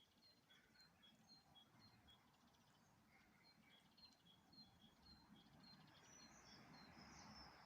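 Faint garden birdsong: a small bird repeats a high two-note phrase about twice a second, and other higher chirps join near the end over a soft hiss.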